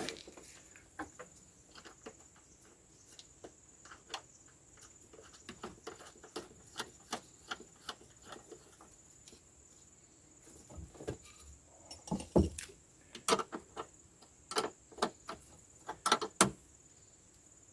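Irregular small clicks and taps of hand tools and parts being handled and fitted, with a cluster of louder knocks about twelve to sixteen seconds in.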